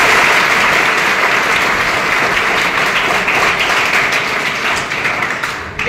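A large seated audience of students applauding, loud and steady, dying away just before the end.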